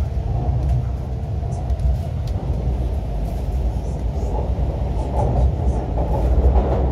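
Passenger-cabin sound of an MTR Q-train electric multiple unit on the move: a steady low rumble of wheels on rail with faint clicks, growing louder over the last couple of seconds.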